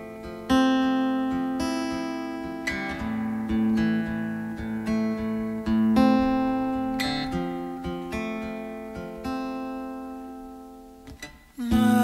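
Solo acoustic guitar playing slow chords, each strummed and left to ring out and fade before the next.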